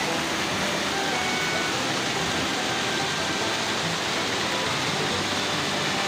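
Steady rush of river water churning white over rocks in a small waterfall cascade.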